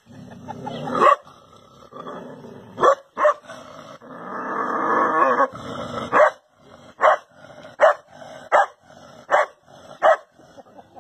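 A dog barking in repeated short, sharp barks, coming about once a second from about six seconds in, with a longer continuous sound in the middle; typical of a dog barking at its own reflection in a mirror.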